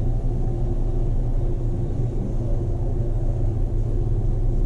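Steady low hum and rumble of a machine running, unchanging throughout.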